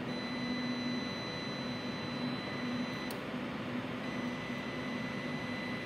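A steady high-pitched electronic tone over a hiss of room noise, with a short click about three seconds in.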